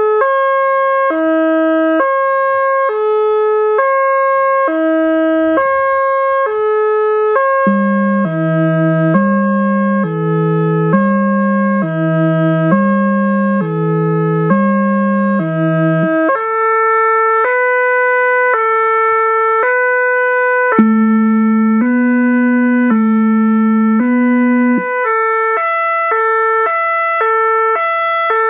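Whelen Carbide electronic siren playing the Composite Tritone, stepping through a repeating set of notes. About seven seconds in, the Howler low-frequency speaker joins with a deep low tone under it. Around halfway the siren switches to other stepped tone patterns, and near the end to the French SAMU tone.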